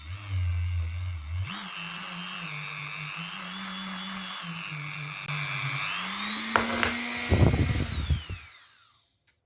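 Dremel rotary tool with a hook-and-loop polishing pad starting up and running with a high whine that dips and recovers as the pad is pressed onto the work, then speeds up. Near the end a loud irregular rattling of the pad against the work comes in, and the tool is switched off and winds down with a falling whine.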